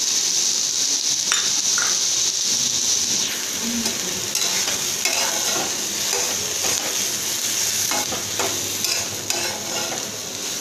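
Chopped onion, green capsicum and tomato sizzling in oil in a metal kadai, stirred with a metal spatula. The sizzle is a steady hiss throughout, with scattered scrapes and taps of the spatula against the pan.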